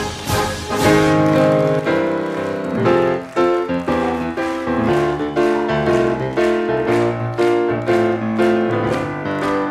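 Piano playing a lively song introduction in even chords, about two a second, ahead of the singers' entry.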